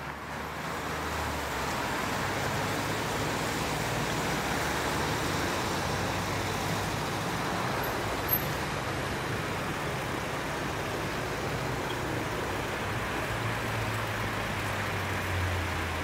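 Street traffic noise, a steady wash with a low engine hum underneath that grows stronger near the end, and one small click about eight seconds in.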